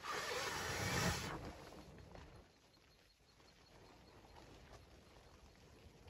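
Nylon rain jacket rustling for about a second and a half as its wearer crouches by a wood stove, then a faint steady hiss with a few small clicks.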